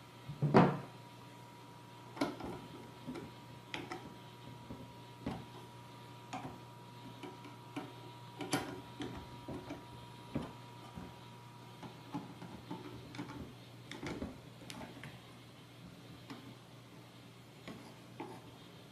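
Irregular small clicks and knocks from handling a metal tracked robot chassis and tightening its board-mounting screws and nuts, with a louder knock about half a second in as the chassis is turned over.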